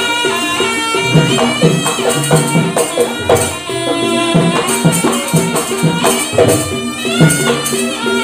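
Live Javanese jaranan ensemble music: a melody over busy traditional percussion, with repeated low drum strokes and jingling, rattling hits.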